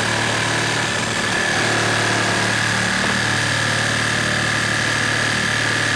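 Makita 36-volt brushless reciprocating saw on speed one, cutting steadily through a pressure-treated 4x4 timber post, running at an even pitch with a steady high whine.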